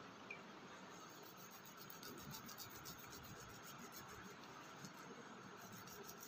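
Near silence: a faint hiss with faint rubbing and light ticking as hands knead and roll wet clay.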